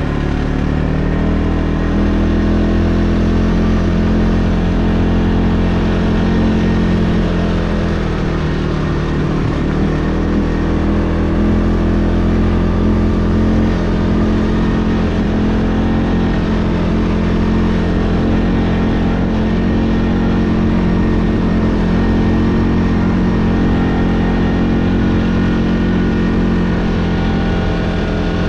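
A vehicle engine running continuously under way. Its pitch climbs over the first couple of seconds, sags about nine seconds in, then holds steady, with a constant low rumble beneath.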